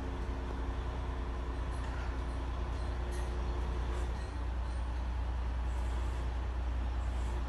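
Crane truck's engine running steadily with a low drone as it drives the crane through a lift of a suspended 450 kg spa. A higher-pitched whine rides along with it and stops about four seconds in.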